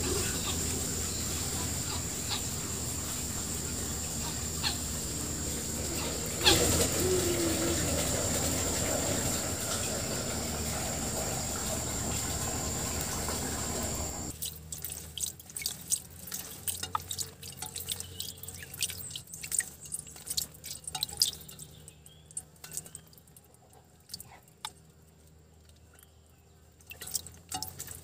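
Small water splashes and drips with scattered light clicks from white-breasted waterhens at their cage's water bowl and feed tray. A steady hiss with a thin high whine fills the first half, then stops suddenly, leaving quieter sharp clicks.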